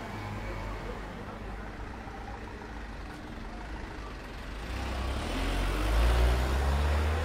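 Street traffic with a vehicle engine running close by: a small box truck's engine hum grows louder about five seconds in, rising slightly in pitch, over a passing car.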